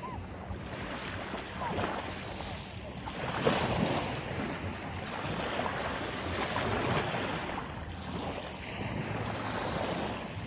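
Sea waves surging and washing in, a rushing hiss that swells and eases every few seconds.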